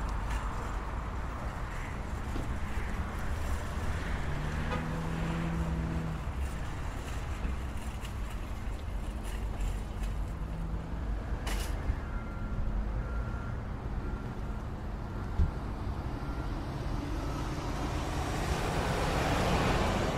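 Supermarket car park ambience: a steady rumble of vehicle engines and traffic. A single sharp knock comes about halfway through, followed by a run of short, evenly spaced electronic beeps, and a vehicle passes close by, swelling up near the end.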